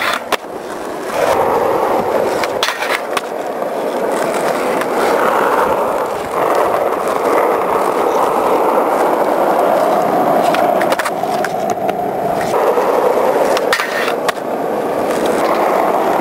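Skateboard wheels rolling over concrete skatepark flat, a steady rolling noise, with several sharp clacks of the board popping and landing.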